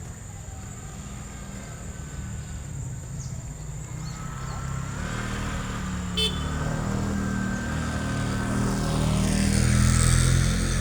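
A road vehicle's engine rumbling low and growing louder toward the end, as if passing close by, with a brief click about six seconds in.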